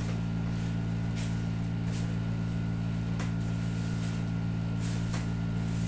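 Steady low electrical hum with a faint higher whine over it, and a few faint soft clicks scattered through it.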